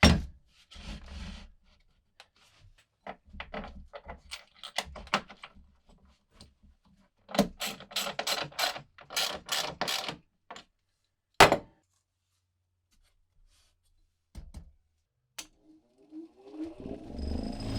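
Irregular sharp taps and knocks of metal hand-tool work on a rusty pocket knife, with scraping and a run of quick strokes at about five a second midway. Near the end a small power tool's motor starts and spins up, rising in pitch.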